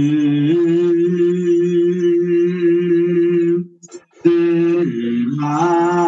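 Ethiopian Orthodox liturgical chant: voices holding long, steady notes. It breaks off briefly a little before four seconds in, then resumes.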